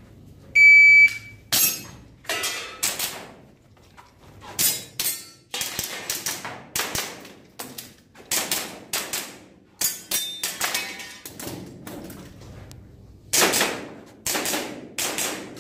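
Electronic shot-timer beep, followed by a string of sharp airsoft gun shots fired at an irregular pace, roughly one a second, each with a short ringing tail.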